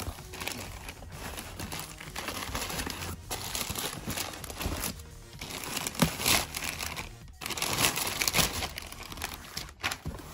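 Thin black plastic mailing bag crinkling and rustling as a cardboard shoebox is pulled out of it, in several spells with short breaks between.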